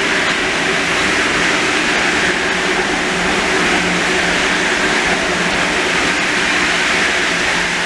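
Paris Métro train running past the platform: a steady, loud rush of train noise with a faint hum beneath it.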